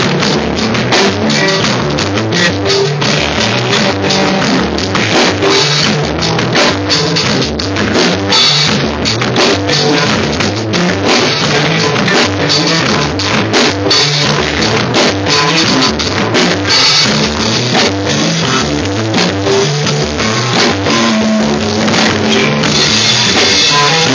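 Live rock band playing an instrumental song, loud and steady throughout: a drum kit with cymbals and an electric guitar over moving low bass notes.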